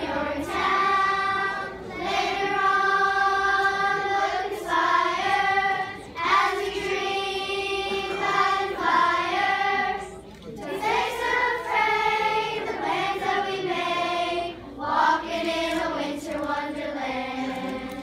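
Children's choir singing together in phrases of a few seconds with short breaks between, the last phrase held and ending right at the close.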